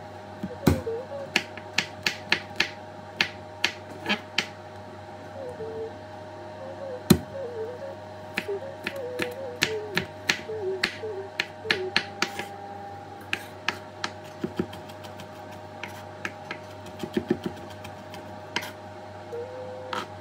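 Kitchen knife mincing garlic on a wooden cutting board: irregular sharp knocks of the blade against the board, in quick runs with short pauses between them.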